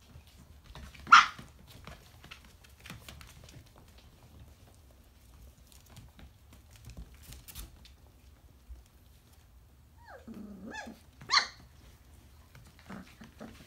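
Briard puppies, about four and a half weeks old, yapping: a sharp loud yip about a second in, then near the end a short falling whine followed by a high yap. Faint ticks in between.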